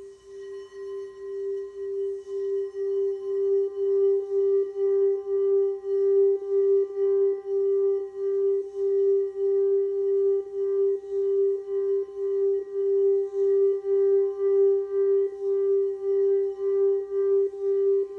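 Singing bowl being rimmed with a mallet. Its single sustained tone swells over the first few seconds and then holds, with a steady wavering pulse of about two beats a second. The bowl is supposed to be tuned to a G note for the throat chakra.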